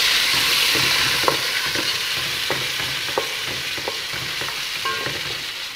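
Mutton and ginger-garlic paste sizzling in hot oil in a metal pot while being stir-fried, with short scrapes and clicks of the stirring spoon against the pot.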